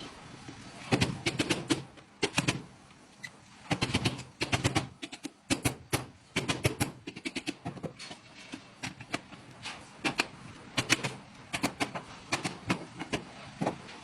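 Sharp knocks and taps in quick runs, several strikes at a time with short pauses between.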